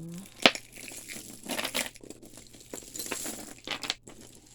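Tangled costume jewelry being handled and pulled apart: beads and chains clicking and rattling against each other, with rustling, and one sharp click about half a second in.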